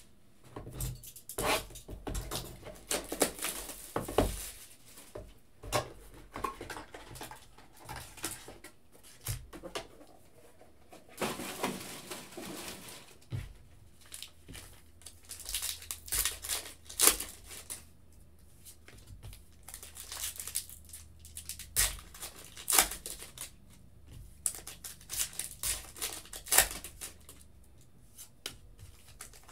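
Trading card pack wrappers being torn open and crinkled, and cards handled: a string of irregular rustles and clicks, with one longer tearing rustle about eleven seconds in.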